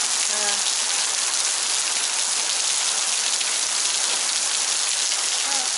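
Heavy rain pouring down steadily, drops striking cars and soaked ground.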